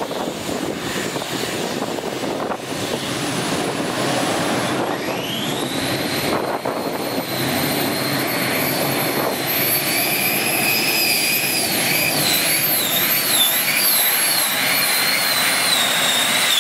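Four gas-turbine engines of a turbine pulling tractor whining over a steady rush. The whine climbs in pitch about five seconds in and holds high, wavers up and down near the end, then starts to fall away.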